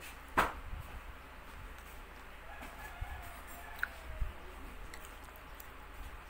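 Chicken calls: one short loud squawk about half a second in, then fainter clucking and crowing a few seconds later.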